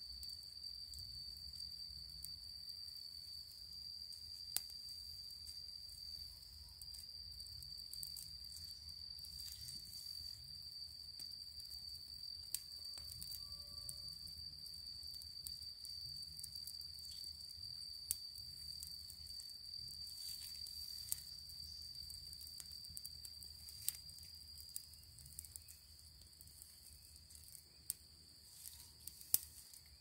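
Insects trilling in a steady, high-pitched, unbroken drone that dies away a few seconds before the end, with a few faint sharp clicks.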